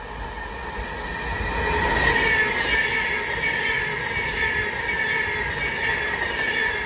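Avanti West Coast passenger train running past along the platform line, growing louder over the first two seconds as it comes close and then holding steady. A high whine runs through it and sinks slightly in pitch as the train goes by.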